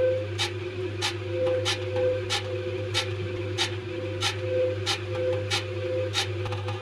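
Washing machine running with a steady motor hum and a sharp click repeating evenly, a little under twice a second.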